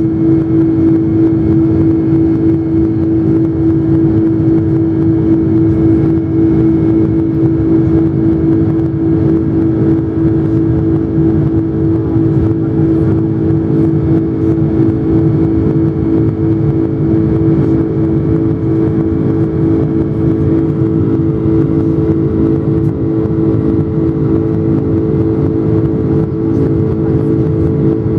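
Boeing 747 jet engines running steadily at high power during takeoff and climb: a loud, continuous drone with a steady hum in it that does not rise or fall.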